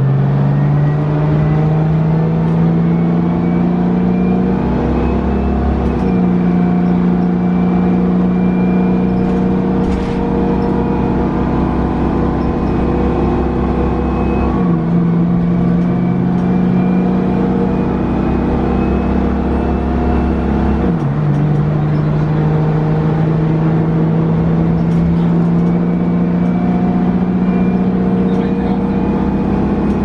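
Detroit Diesel 6V92TA two-stroke V6 engine of a 1990 Orion I bus pulling under load, heard inside the cabin. Its pitch climbs slowly and drops sharply twice as the Allison automatic transmission shifts up, with a high whine rising alongside.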